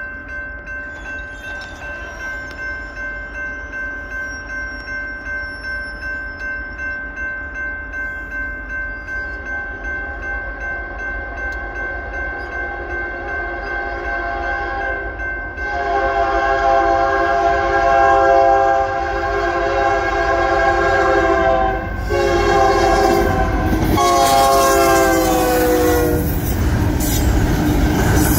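Grade crossing bell ringing with regular strokes; from about 15 seconds in an intermodal train's locomotive horn sounds a long blast, then two shorter blasts, the last dropping in pitch as the locomotive passes. The horn gives way to the rumble of double-stack container cars rolling over the crossing.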